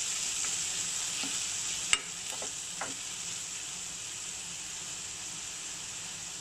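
Chopped onions, green chilli and ginger-garlic sizzling in hot coconut oil in a nonstick pan while a spatula stirs them. A sharp tap of the spatula against the pan about two seconds in, with a few lighter knocks around it; the sizzle eases slightly in the second half.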